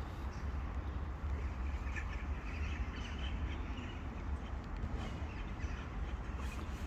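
Outdoor ambience: a steady low rumble with a few faint, short, bird-like animal calls over it.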